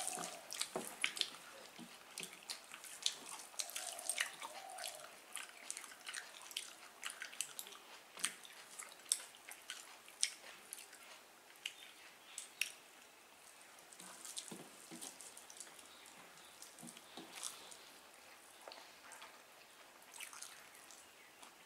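People eating rice and fish curry by hand from metal plates: faint, irregular clicks and wet smacks of fingers working the food on the plates and of chewing.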